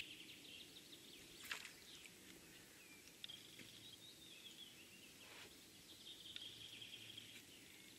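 Near silence with faint birdsong: thin chirps and twitters, and two faint soft taps, about a second and a half in and again near five and a half seconds.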